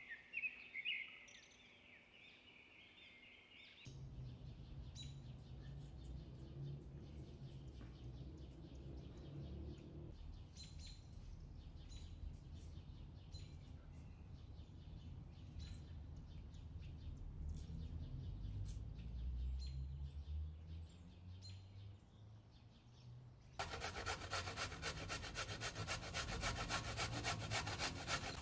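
Birds chirp in the first seconds. Then a knife scrapes with light clicks as carrots are peeled. From about five seconds before the end, a carrot is rubbed hard against a metal box grater in quick, even strokes, the loudest sound here.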